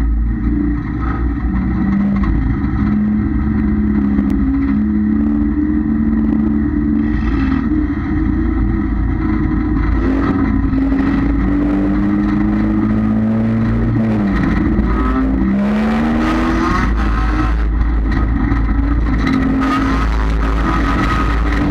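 Dirt-track race car's engine running, heard from inside the cockpit, with the revs wavering up and down. About two-thirds of the way through the revs drop briefly and then climb back as the throttle is lifted and reapplied.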